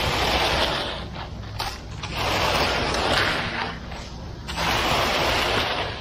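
Long-handled concrete tool dragged through wet concrete, three long scraping strokes as the concrete is pulled and spread along the form.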